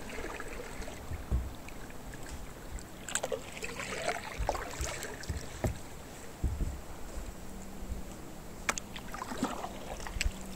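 Canoe paddling: paddle strokes splashing and dripping in the water, with a few light knocks.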